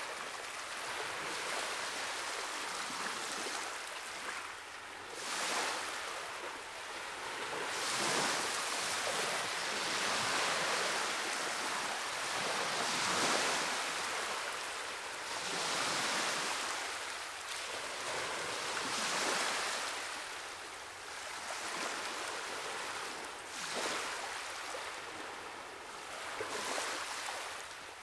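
Ocean surf: waves washing in and drawing back, the hiss swelling and easing every few seconds.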